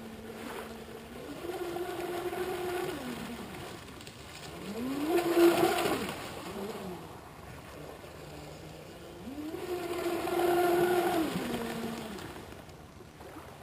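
Aquacraft Motley Crew RC boat running at speed. Its motor whine rises in pitch as the throttle comes on, holds and falls away, three times over. The middle run is the loudest and sweeps up and down in pitch about five seconds in.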